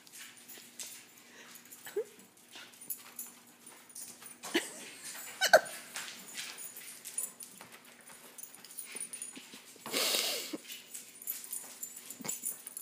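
Two dogs, a Great Dane puppy and a Ridgeback, playing chase: paws clicking and scrabbling on a hardwood floor, with a few short rising whines and a louder rough burst about ten seconds in.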